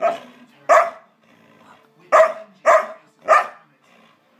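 Samoyed barking: five short, sharp barks, two at the start and then three in quick succession after a pause of about a second.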